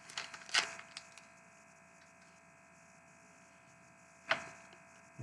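Trading cards and a foil pack wrapper rustling and clicking as they are handled for about a second, then near silence with a faint steady hum and a single sharp click about four seconds in.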